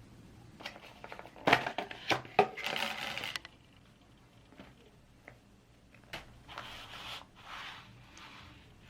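Handling noises: a quick cluster of clicks and scraping about a second and a half in, then several soft rustles.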